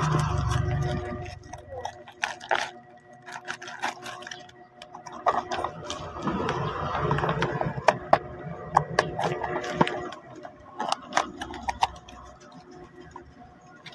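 Handling noise from a small cardboard product box and its packaging: irregular clicks, knocks and rustling, close to the microphone, over a faint steady hum.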